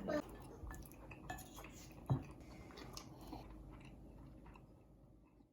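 Someone chewing food, with scattered light clicks of cutlery or dishes and one sharper clink about two seconds in; the sound fades toward the end.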